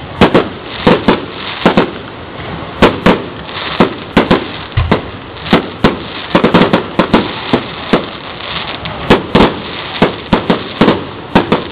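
Aerial fireworks going off in quick succession: many sharp bangs of bursting shells at irregular intervals, often two or three close together, over a steady background hiss.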